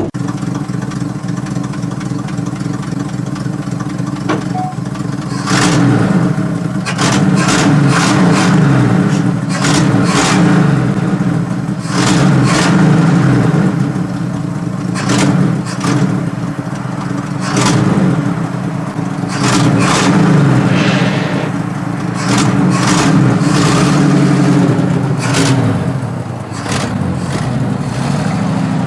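1968 Chevy pickup's engine running and revving up and down over and over as the truck is driven, with many sharp knocks scattered through the middle of the stretch.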